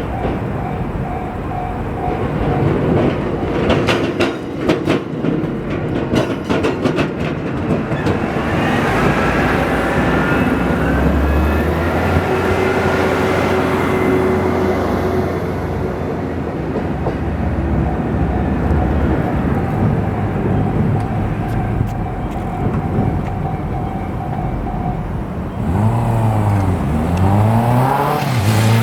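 KiYa E193 East-i D diesel inspection train passing: wheels clicking over rail joints, then its diesel engine running. Near the end, road vehicles accelerate away with rising and falling engine pitch.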